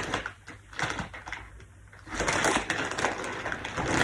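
Crunching and crinkling of a snack and its wrapper being handled, in two bursts: a short one at the start and a longer one about two seconds in.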